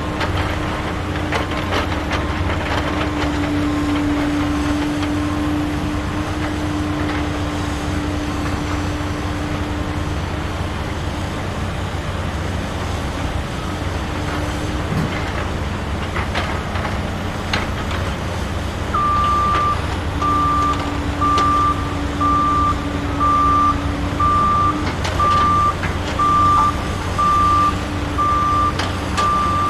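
Toy truck sound effects: a steady engine rumble, then from about two-thirds of the way in a reversing alarm beeping about once a second.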